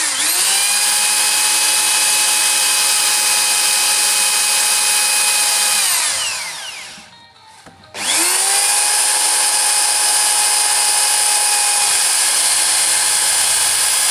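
Electric drill drilling holes in two runs of about six seconds each. Each run starts with a quick rise in pitch, holds a steady whine, then winds down with falling pitch.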